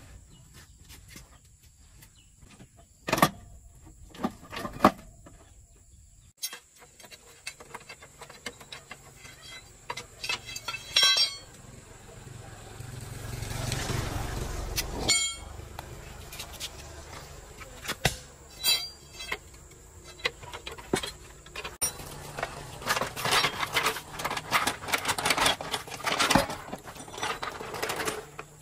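Sharp metal clanks and knocks of tools and parts during clutch repair work, coming thick and fast near the end. About halfway through, a passing vehicle's sound swells and fades.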